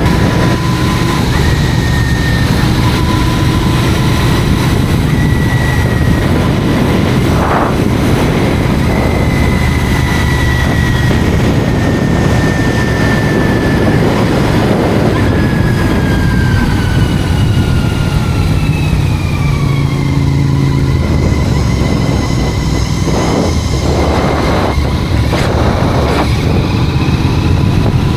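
Royal Enfield Continental GT 650's 648 cc parallel-twin engine running steadily under way on the road, heard from the rider's helmet. The engine's pitch drifts slowly with the revs, falling noticeably about two-thirds of the way through.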